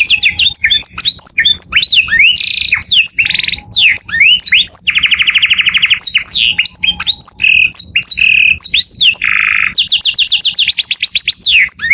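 Male canary singing continuously: fast runs of repeated rising and falling whistled notes, with a long rapid roll about five seconds in.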